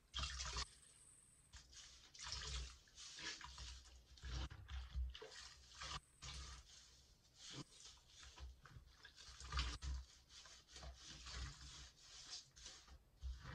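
Soapy, lathered sponges squeezed and squished by hand in a sink of water: irregular wet squelches and sloshes, a new squeeze every second or so.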